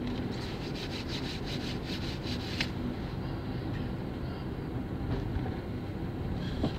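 Steady engine and tyre rumble inside a car's cabin, driving on a wet road. Over the first two and a half seconds a rapid run of scratchy ticks comes through, about five a second.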